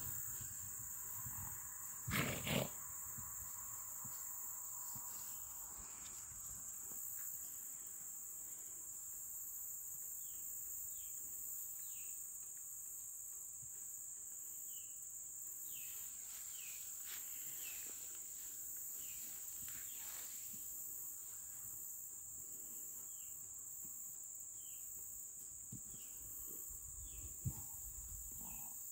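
Steady high-pitched drone of summer insects. A short, louder double burst of noise comes about two seconds in, and scattered faint chirps are heard in the second half.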